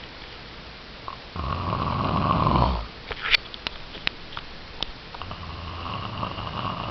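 Snoring: two snores, a loud one about a second and a half in lasting over a second, then a quieter, longer one near the end.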